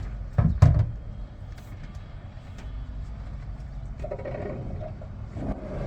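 Steady low vehicle rumble, with a loud knock about half a second in and a few softer clicks later.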